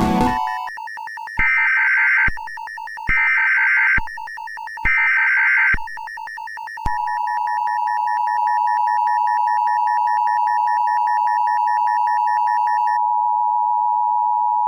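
Emergency Alert System alarm sound effect: three shrill data-header bursts of about a second each, over a rapid pulsing beep, then about seven seconds in a long, steady attention tone.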